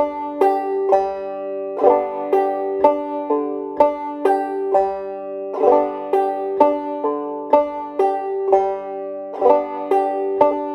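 Five-string banjo played clawhammer style in a steady drop-thumb pattern: melody notes on the first string alternate with the thumb dropping to the fourth string and returning to the fifth-string drone. The plucked notes come in an even, repeating rhythm with open strings ringing underneath.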